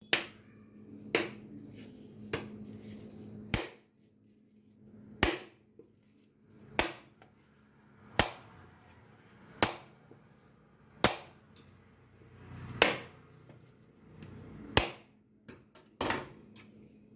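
About a dozen sharp, hard knocks, evenly spaced roughly a second and a half apart, over a faint steady hum.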